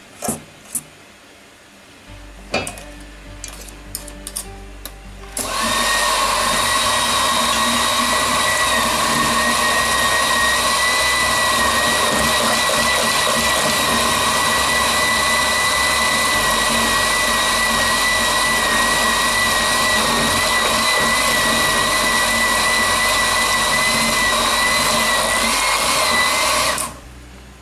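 Electric mixer beating a flour-and-water batter smooth, running steadily with a high whine for about twenty seconds and switched off near the end. A few light clicks and taps come before it starts.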